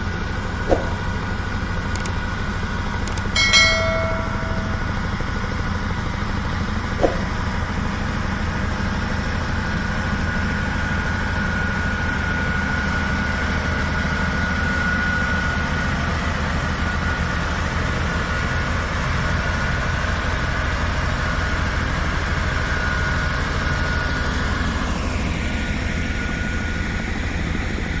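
Diesel engine of a single-drum vibratory road roller running steadily, a deep continuous rumble with a steady whine over it. A short high tone sounds about three and a half seconds in.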